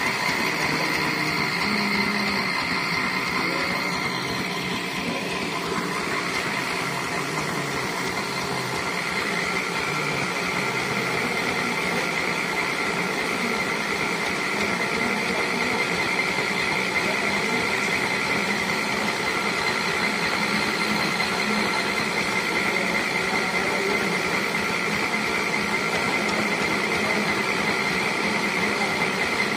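The engine-driven winch of a well-digging hoist running steadily, with a constant high-pitched squeal over the engine noise.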